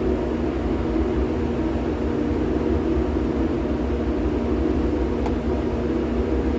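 Steady drone of running machinery with a constant low hum, and a faint click about five seconds in.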